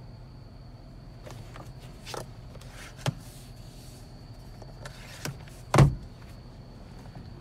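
Car sun visor and its vanity mirror cover being handled: a few plastic clicks, then a heavy thump near the end, the loudest sound, as the visor is flipped back up. A low steady cabin hum runs underneath.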